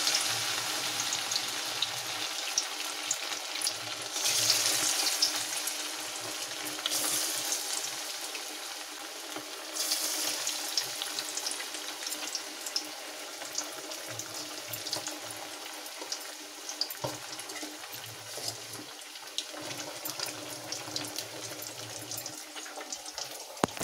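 Cornflour-coated fish pieces deep-frying in hot oil in a kadai: a steady sizzle peppered with small crackles and pops, swelling louder for a moment a few times.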